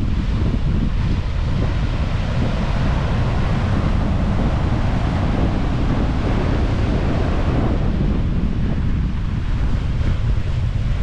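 Wind buffeting the microphone over ocean surf on a beach, with the hiss of a wave's wash swelling and fading midway.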